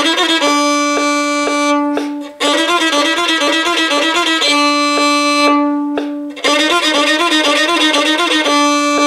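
Solo violin playing a finger-pattern warm-up exercise of half-step and whole-step combinations at 120 beats per minute: runs of quick bowed notes alternate about every two seconds with a long held note. A metronome ticks twice a second, heard plainly under the held notes.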